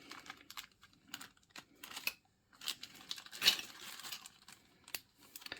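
Irregular small clicks and clinks with brief rustling as wargaming miniatures and their packaging are handled and taken out of the box.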